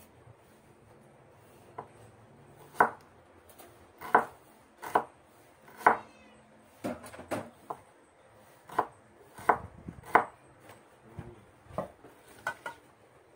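Kitchen knife slicing a red onion on a wooden cutting board: irregular sharp knocks of the blade on the board, roughly one a second, starting about two seconds in, with a quick run of several strokes around the middle.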